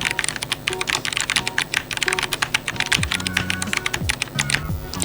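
Fast typing on an Aula Wind F3032 mechanical keyboard with brown switches: a dense stream of keystroke clicks that stops about four and a half seconds in.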